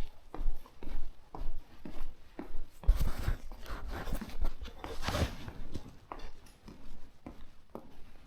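Footsteps crunching on gravel, about two steps a second, with a louder scuffing noise around three and five seconds in.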